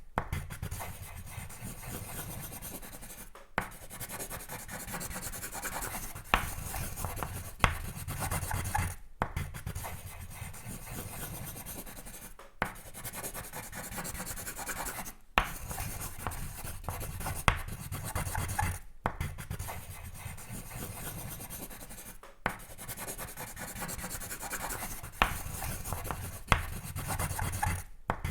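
Sketching on paper: continuous scratchy strokes of a drawing tool rubbing across the sheet, with a few sharp taps and short breaks every few seconds.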